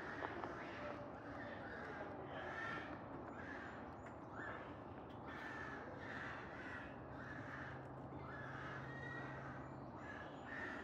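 Crows cawing over and over, about two harsh calls a second.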